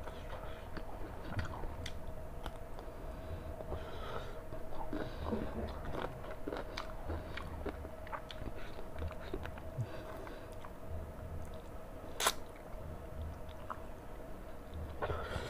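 A person chewing chicken and rice, with many small wet clicks and crunches, and one sharper click about twelve seconds in. A faint steady hum runs underneath.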